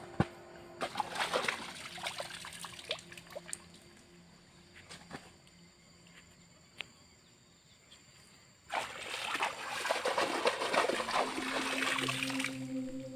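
Water splashing and sloshing in two spells, one starting about a second in and a louder one from about nine seconds in.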